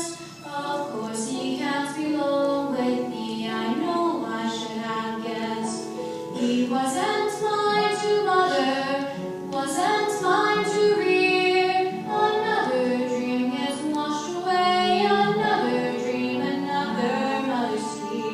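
Young voices singing a musical-theatre song.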